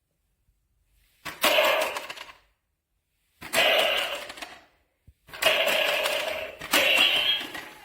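Electronic sound effects from a Nerf shooting target's small speaker, four times, each a sharp hit that fades over about a second.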